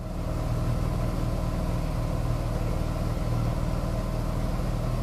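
Outboard motor of a small flat-bottomed boat running steadily under way, heard from on board. The sound fades in at the start and cuts off abruptly near the end.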